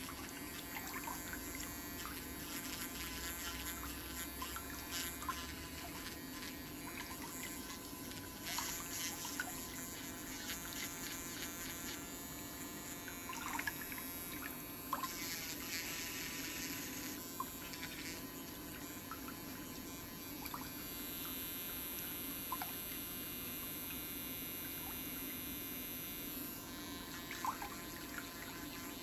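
Handheld electric nail drill (e-file) with a fine bit running steadily against a big toenail, with a few light clicks along the way.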